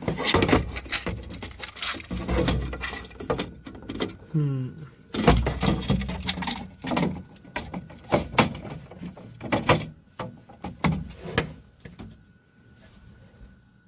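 Repeated clicks, knocks and rattles of plastic parts being handled on a 3D printer, dying away near the end and leaving a faint steady high whine.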